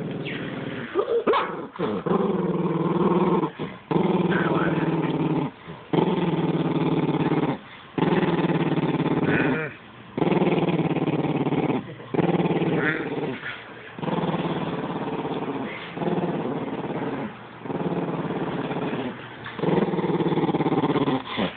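Chocolate miniature dachshund growling in about ten long, steady rumbles, one after another with a short breath between each. She is guarding her stuffed raccoon toy and does not want to share it.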